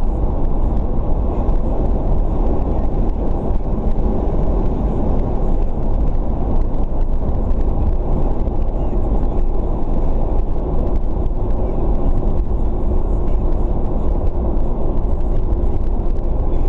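Steady road and engine noise inside a car's cabin as it drives at an even speed: a dense low rumble with a faint hum.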